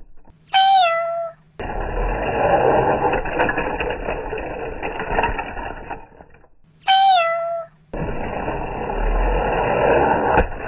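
A small toy-train motor whirring steadily, cut off twice, about six seconds apart, by an identical short high-pitched call that drops in pitch and then holds for under a second.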